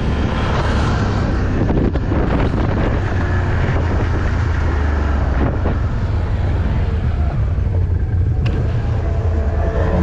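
Can-Am off-road vehicle's engine running steadily under way, a deep low drone, with wind buffeting the action-camera microphone.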